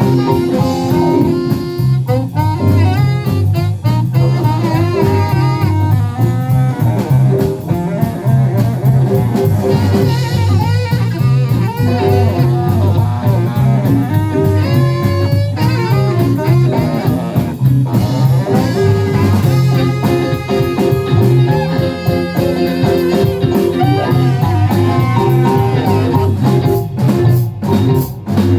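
Live band playing a jazz-tinged pop song, with guitar, drum kit and a steady repeating bass line.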